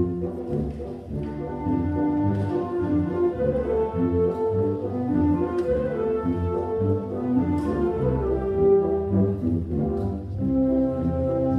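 A symphonic wind band playing a pasodoble: brass carry a sustained melody over a full low accompaniment, with a few light percussion strikes along the way.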